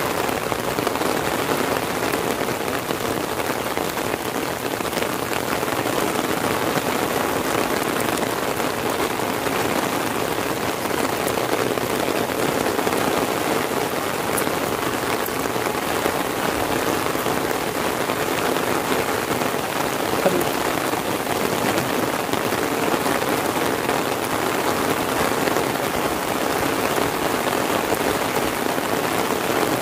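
Heavy rain falling steadily, drumming on an umbrella overhead and splashing on the paved road, with one brief louder tap about two-thirds of the way through.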